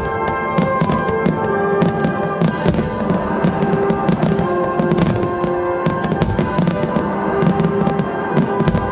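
Display fireworks bursting and crackling in quick succession over loud music with sustained notes played along with the show.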